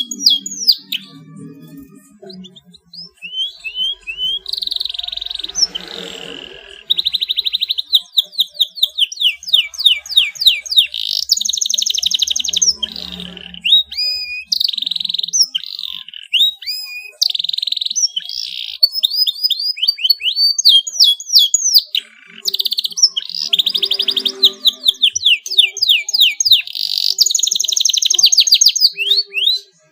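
Domestic canary singing a long, continuous song of rapid high trills and rolls, strings of quick repeated sweeping notes running into steady buzzy trills, with only brief pauses.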